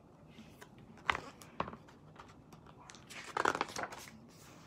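Paper pages of a picture book being handled and turned: two soft taps a little after a second in, then a short rustle of paper.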